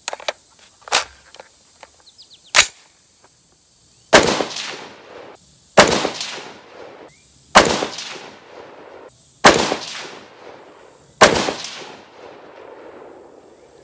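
Five .308 shots from a PSA PA10 AR-10 pistol with a 12.5-inch barrel, fired about every two seconds, each with a long echoing tail. A few smaller clicks come before the first shot.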